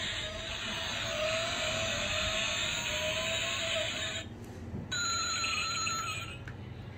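Sound effects from a die-cast toy Rolls-Royce's small built-in speaker: an engine-like tone that rises slowly for about four seconds, then after a short break a higher, steady tone.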